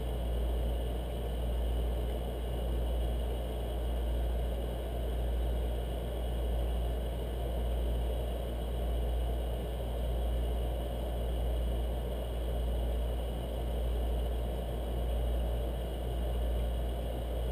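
Steady low mechanical hum with a gentle, even swell and fade about every second and a half.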